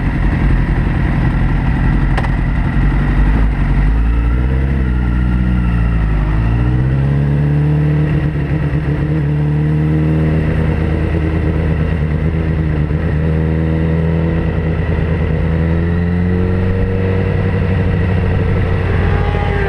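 Sport motorcycle engine running under the rider, the revs dipping and rising a few seconds in, then holding steady, and climbing again near the end.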